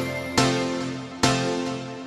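Background music: pitched chords struck a little under once a second, each fading away before the next.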